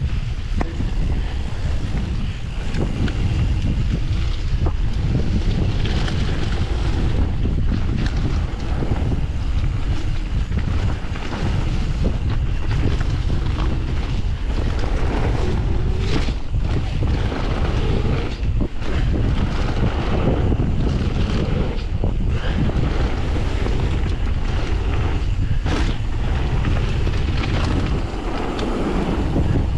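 Wind rushing over the microphone of a mountain bike riding fast down a dirt and gravel trail, with tyres rolling over the ground. Scattered short knocks and rattles come from the bike over bumps.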